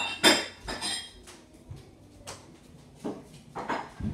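Kitchen utensils and dishes clinking and clattering in a series of separate knocks, several with a short metallic ring.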